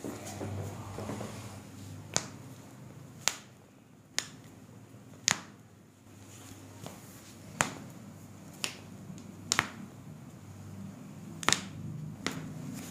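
Joints of a patient's foot and toes cracking under a chiropractor's manipulation: about ten short, sharp pops at irregular intervals, roughly one a second, some in quick pairs. These are the audible releases of the joints being adjusted.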